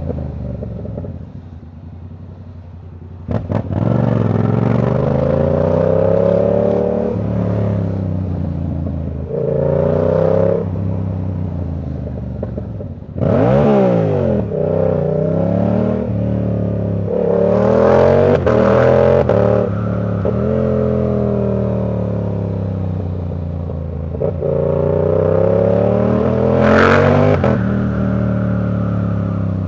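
Yamaha R7's 689 cc parallel-twin engine through a Ko Lightning aftermarket exhaust, repeatedly accelerating and backing off. The pitch climbs with the revs and drops at each gear change. It runs softer for the first few seconds, then pulls harder from about three seconds in.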